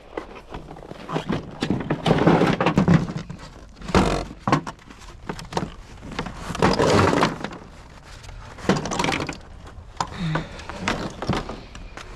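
Irregular knocks, thuds and scraping clatter of hard objects being handled and shifted by hand, in several bursts with a sharp knock about four seconds in.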